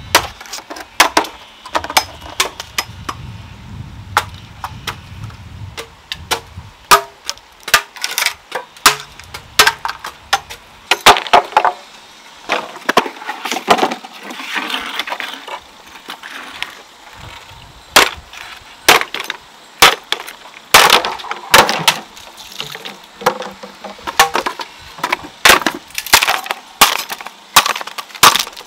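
An irregular series of sharp knocks and cracks, coming several a second at times, with a low rumble for a few seconds near the start.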